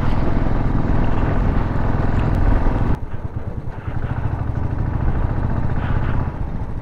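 Royal Enfield single-cylinder motorcycle engine running under way, with wind noise on the microphone. About three seconds in the sound drops abruptly and mostly the engine's low, rhythmic beat is left.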